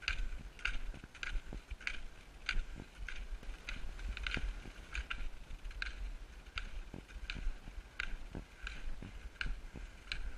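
Footsteps crunching on a packed snow track, a steady walking rhythm of about three crunches a second.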